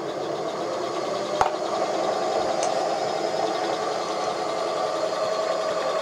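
Hobby 818 mini lathe running at a steady speed, belt-driven by a 24 V DC scooter motor: a steady whir with a faint tone, mostly from the spindle shaft turning inside the headstock, since the motor itself runs quiet. A single sharp click about one and a half seconds in.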